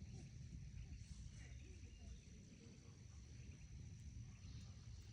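Near silence: faint outdoor background with a low rumble and a thin steady high-pitched tone.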